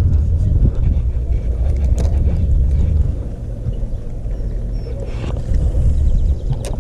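Fishing boat running on the river: a steady low rumble with a few light clicks and knocks.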